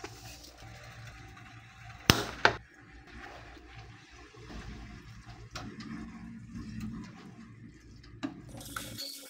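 Spatula stirring and tossing fettuccine with spinach in a frying pan: soft, wet stirring and scraping sounds, with two sharp knocks about two seconds in.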